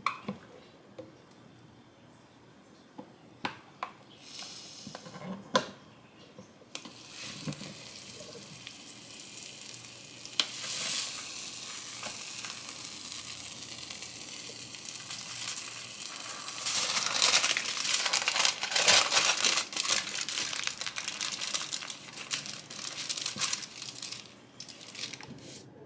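An electric sandwich press clicks open, and melted cheese sizzles on its hot plates. Aluminium foil is then crinkled and crumpled around the toasted sandwich, loudest in the second half.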